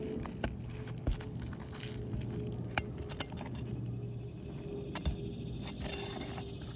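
Scattered sharp clicks and taps as tools and asphalt shingles are handled during shingle and nail removal on a roof, over a steady low hum.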